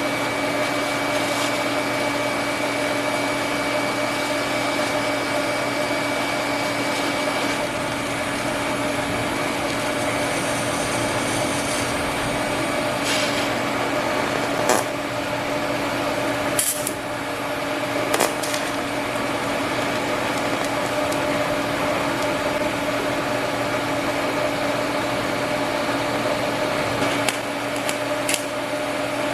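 TIG welding on cast iron: a steady electrical hum and hiss from the welder and arc, with a few sharp clicks about halfway through.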